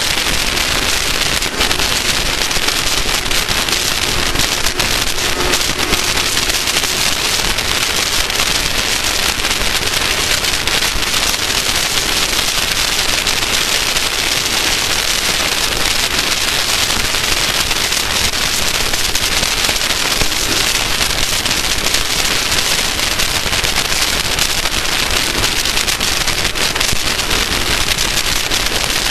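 Off-road race vehicle at speed: a loud, steady rushing noise with constant fine crackling and no clear engine note.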